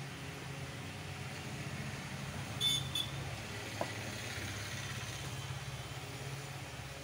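Steady low background hum, with a short scrape a little under three seconds in and a single click soon after, as the motor housing and a small cardboard box are handled.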